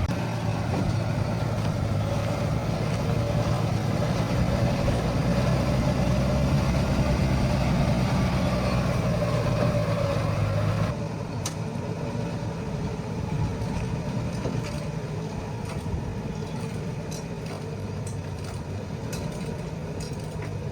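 Heavy diesel truck engine running steadily with a low hum. About eleven seconds in the sound changes suddenly to a quieter, duller engine sound.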